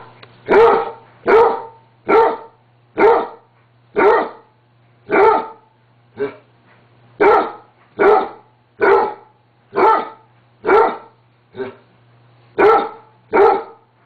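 Basset hound barking playfully and repeatedly, single deep barks coming roughly once a second, a few of them softer.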